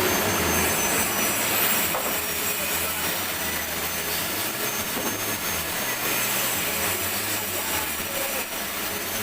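Steady, continuous machine running noise with a thin high whine, typical of a lathe or similar shop machine working on a crankshaft journal.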